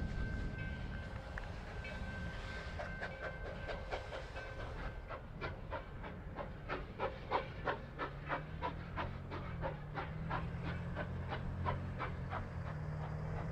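Steam locomotive #4960, a former Chicago Burlington & Quincy 2-8-2 Mikado, working a passenger train at slow speed. A few seconds of steady steam hiss give way to sharp exhaust chuffs at about three a second. A low steady engine drone joins about eight seconds in.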